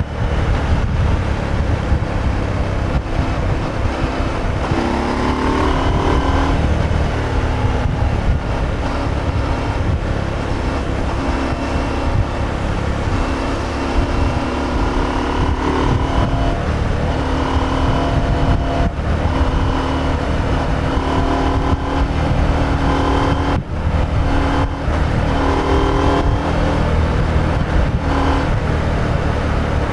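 Stock KTM 890 Adventure's parallel-twin engine under way, its pitch rising several times as the throttle opens and holding steady while cruising in between.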